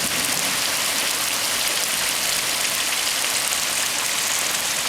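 Steady rain falling, an even hiss with the patter of drops.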